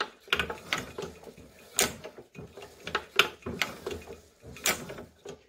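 Make-and-break igniter and valve gear of a Nelson Brothers hit-and-miss engine clicking as the flywheel comes around, with a sharp snap about every one and a half seconds and lighter mechanical clicks between. Each snap marks the igniter tripping for the spark.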